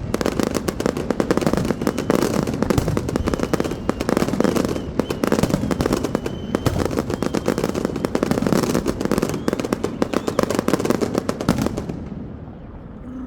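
Fireworks going off in a dense, rapid crackle of many bursts. The crackle dies away about twelve seconds in.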